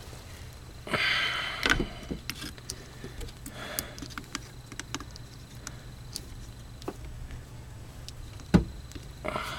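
Handling noise from hands-on work: a rustling scrape about a second in, scattered small clicks and taps, and one sharp knock near the end.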